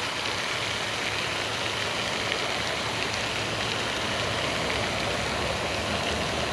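Steady rushing hiss of a pond fountain's spray falling on the water.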